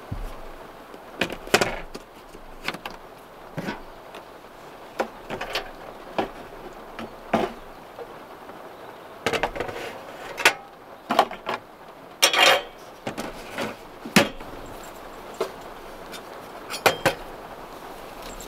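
Scattered light knocks and clicks at irregular intervals over a steady soft hiss, a few of them sharper and briefly ringing.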